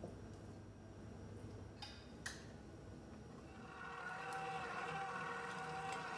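KitchenAid stand mixer's motor starting about three and a half seconds in and running steadily with a whine as the wire whisk beats the mixture in the steel bowl. Before it, a low hum and a couple of light clinks around two seconds in.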